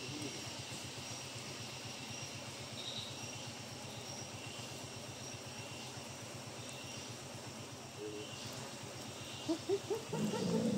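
A vehicle's engine idling steadily with a low pulsing hum, under a steady high-pitched drone of forest insects. Low voices come in near the end.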